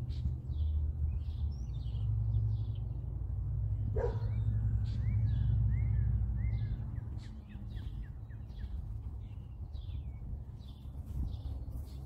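Birds chirping and singing in short repeated notes, with a quick run of falling notes in the middle, over a steady low rumble. One short, sharp sound stands out about four seconds in.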